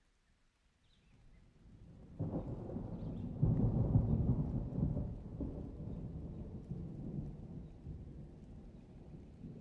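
Thunder: a low rumble builds, breaks sharply about two seconds in, is loudest a couple of seconds later, then slowly rolls away.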